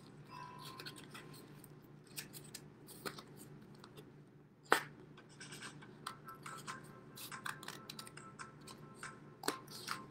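Scissors snipping through a paper plate in short, irregular cuts, with one louder snip just before the middle.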